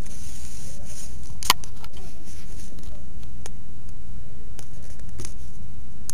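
A softcover book handled on a wooden desk: a brief rub of a hand across the cover, then scattered taps and clicks as the book is lifted and turned, over a steady low hum.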